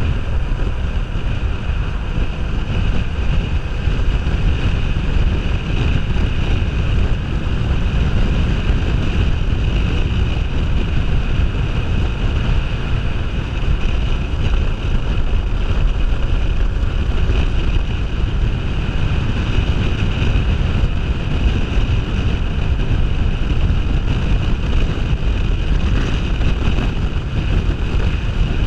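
Steady rush of wind across a GoPro microphone at road speed on a Kawasaki Ninja 500R, with the bike's parallel-twin engine running underneath.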